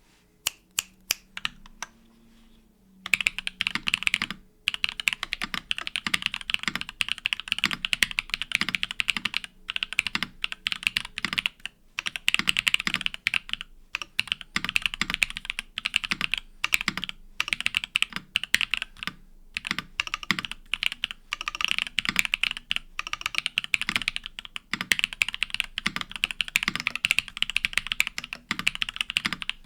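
Merisi 500C/M mechanical keyboard with an aluminium plate, stock Gateron EF Grayish switches and GMK MTNU Space Cadet keycaps being typed on. It starts with a few single keystrokes and a short pause, then settles into fast, continuous typing broken by brief pauses.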